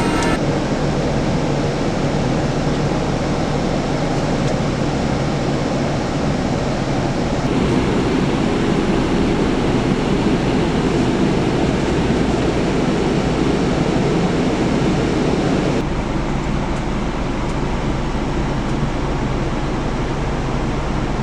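Scania K410 coach on the move: a steady low engine hum under a broad rush of road and wind noise. The noise shifts in character twice, about a third and three quarters of the way through.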